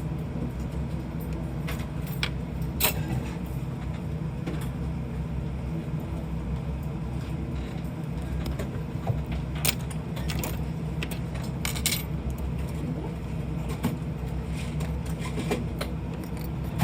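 A steady low hum with scattered light metallic clicks and clinks.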